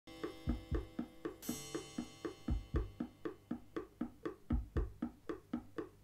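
Music from a CD played over hi-fi loudspeakers (Hifi 45/3 DIY kit speakers): a percussion-only passage of light wood-block-like knocks about four a second, with pairs of deep drum thumps every two seconds and a brief bright hiss about a second and a half in.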